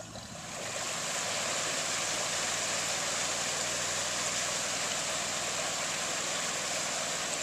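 Tracked amphibious Argo ATV's engine running as the machine churns through a muddy creek, with a steady rush of water and mud.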